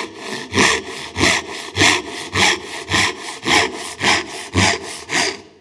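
A 9.5-inch fine rip-cut dozuki Japanese pull saw crosscutting an oak board: about ten steady back-and-forth strokes, just under two a second, each a rasping pull followed by a lighter return. It is a rip-tooth saw working across the grain.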